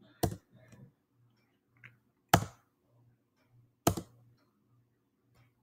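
Three sharp computer clicks, one right at the start, one about two seconds in and one about four seconds in, as the presenter advances the slideshow.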